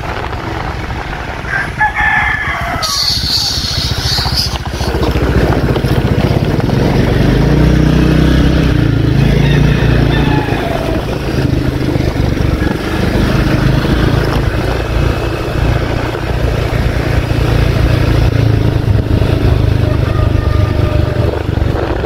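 A motor vehicle's engine running steadily, with a rooster crowing a couple of seconds in.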